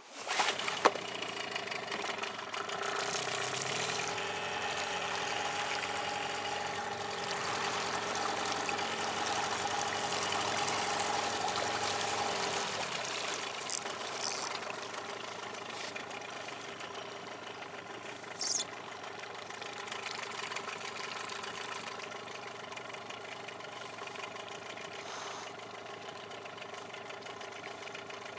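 Small outboard motor, a Hidea 9.9, running at low trolling speed with a steady drone. It comes in abruptly at the start and settles slightly lower about halfway through, with a few faint clicks.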